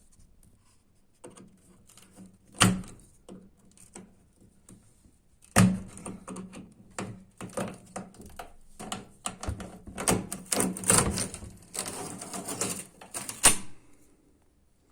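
Clicks, knocks and rattling of tools and machine parts being handled while a Bosch washing machine is taken apart: a couple of sharp knocks early on give way to a long run of dense clicking and clatter that stops near the end.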